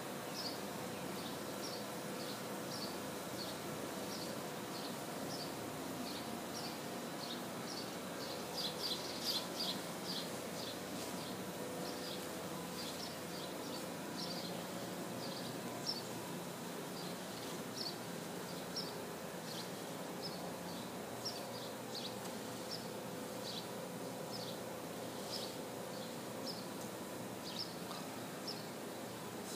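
Insects chirping outdoors: short, high calls repeating about twice a second and overlapping one another, over a faint steady hum.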